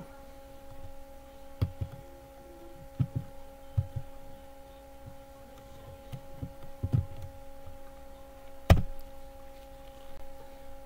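Dull, irregular taps and knocks of typing on a computer keyboard, with a sharper knock about nine seconds in, over a steady electrical hum.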